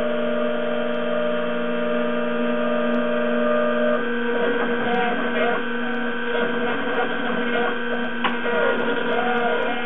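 Roland JWX-30 wax milling machine running with a steady hum from its spindle. From about four seconds in, its axis motors whir up and down in pitch as the cutter moves over the wax on a semi-finishing pass, with one sharp click near the end.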